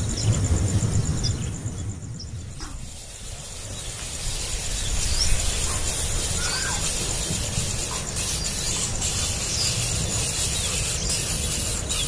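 A few short, scattered bird chirps over a steady low rumble and a high hiss. Thin clicks come near the end.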